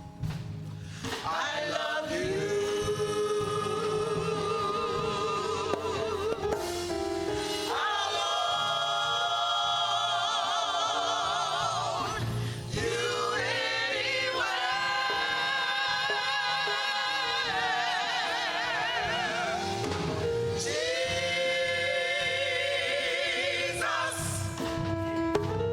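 Gospel singing with music: slow phrases of long held notes sung with vibrato, each a few seconds long with short breaks between them.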